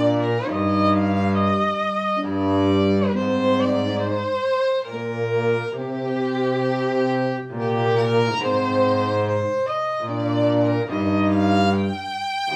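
Slow instrumental music: a bowed-string melody, violin-like, over held low notes that change about every second.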